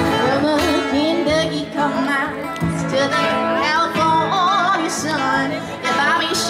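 Music: a singer with guitar, in a country style, with a wavering sung melody over steady held notes.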